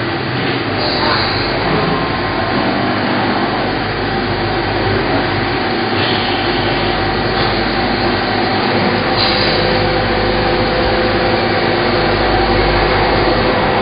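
Steady, loud mechanical din of machinery running, with a few faint steady hums in it.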